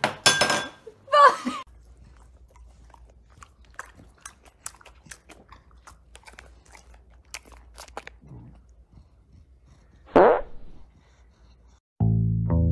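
A dog chewing crunchy treats: many small, crisp crunches over a low hum, with one brief louder sound about ten seconds in. Music with a bass guitar begins at the very end.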